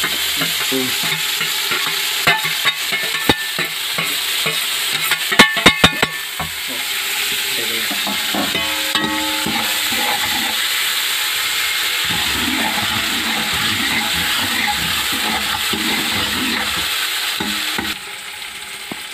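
Chopped onions, green chillies and tomatoes sizzling in hot oil in an aluminium pot as they are stirred. About five seconds in comes a quick run of loud, sharp knocks. The sizzle falls quieter near the end.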